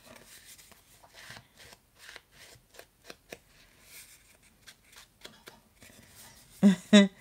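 Foam ink blending tool rubbed and dabbed along the edges of a paper tag, inking the edges: faint, irregular brushing and scuffing strokes of foam on paper.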